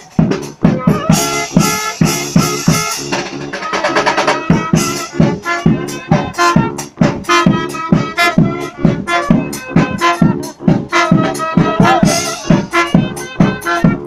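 Live funky brass band playing dance music: horns over a loud, steady drum beat, with a quick run of fast drum strokes about three to four seconds in.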